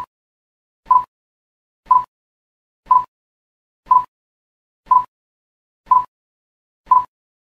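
Countdown timer sound effect ticking once a second, eight short identical ticks counting down the seconds.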